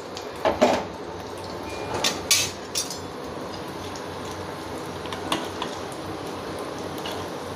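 Metal spatula and ladle knocking and scraping against the pans, several clicks in the first three seconds, over a steady sizzle of batter-coated batata vadas deep-frying in hot oil in a kadhai.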